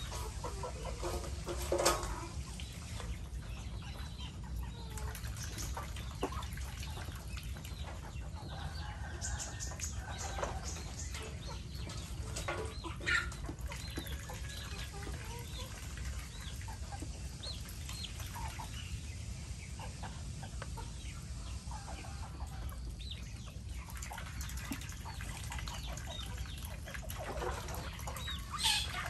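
Backyard flock of chickens clucking and calling, with three louder calls: about two seconds in, near the middle and near the end. A steady low rumble runs underneath.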